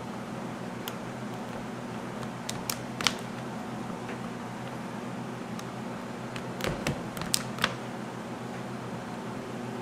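A steady low hum with a scattered handful of sharp clicks and taps, several close together about seven seconds in.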